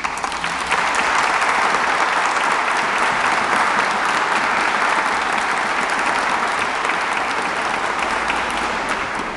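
Audience applauding steadily, starting about a second in and easing off slightly near the end.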